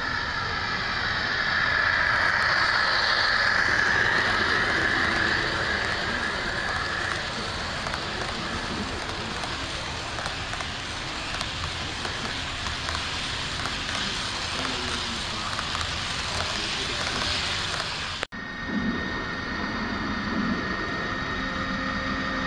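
HO scale model trains running on the layout track: a steady rush and clatter of wheels on rail, with a high whine that slides in pitch, loudest in the first few seconds. About 18 seconds in the sound cuts off for an instant, and then a lower hum comes in as another model locomotive approaches.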